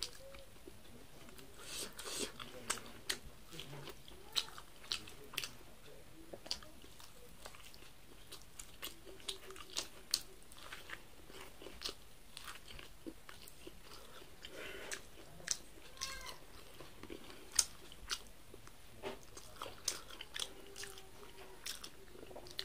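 Close-up eating of corn on the cob: kernels bitten off the ear and chewed, a quick irregular run of sharp crunchy clicks, several a second.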